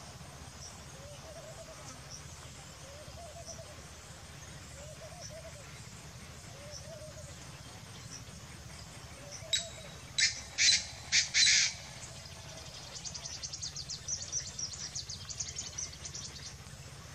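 Painted francolin calling: four loud, harsh notes come about ten seconds in, then a quieter rapid series of high notes. Faint repeated low notes sound before the call.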